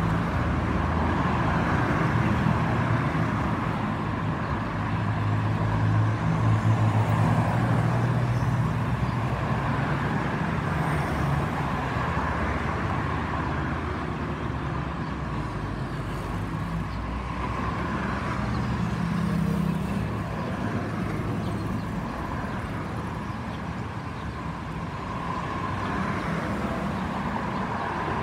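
Steady road traffic on a busy multi-lane highway: cars, pickups and motorcycles going by, with a low rumble that swells as vehicles pass, about six seconds in and again near twenty seconds.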